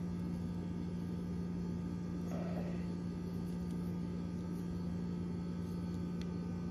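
Steady low electrical hum, with a brief faint rub about two and a half seconds in and a single faint click near the end.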